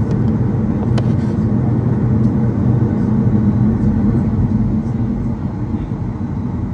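Steady low cabin rumble inside a Boeing 737 standing on the ground before takeoff, with one sharp click about a second in.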